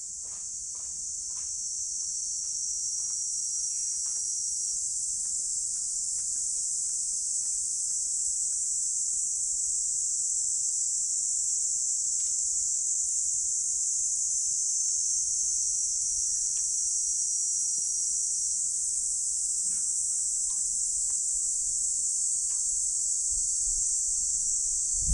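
Cicadas droning in a steady, high-pitched chorus that swells a little over the first few seconds, with a few faint clicks.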